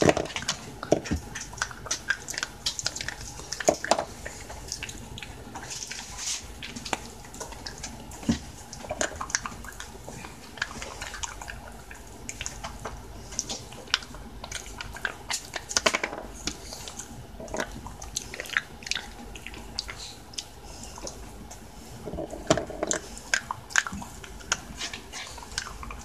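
A Shiba Inu chewing a small milk-flavoured bone-shaped chew, its teeth making irregular crunches and clicks, with short pauses.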